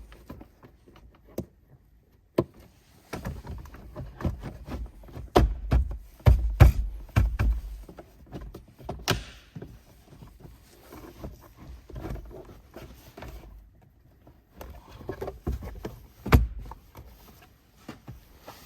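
Plastic glove box being pushed and clicked back into a car dashboard: a run of knocks and clicks with several heavy thuds in the middle, and sharp single clicks about nine seconds in and again near the end.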